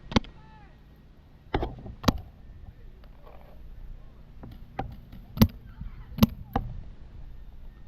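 Paintball markers firing: about seven sharp pops, scattered irregularly, some in quick pairs.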